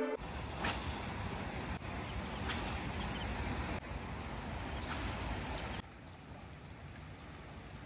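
Outdoor riverside noise: wind buffeting the microphone over the rush of a flowing river, with a few brief swishes. It changes abruptly several times and drops to a quieter hiss for the last couple of seconds.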